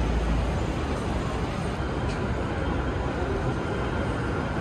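City street traffic: a steady wash of car and bus noise, with a low rumble that eases off about half a second in.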